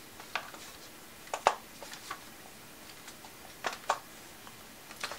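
A few light, scattered clicks and taps of a laptop hard drive and its caddy being handled, the clearest about a second and a half in and again near four seconds.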